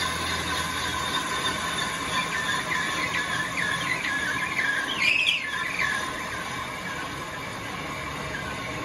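Metal lathe turning a steel shaft end in a four-jaw chuck: a steady machine whine, with the cutting tool squealing against the steel in short chirps, loudest about five seconds in. The squealing dies away over the last few seconds.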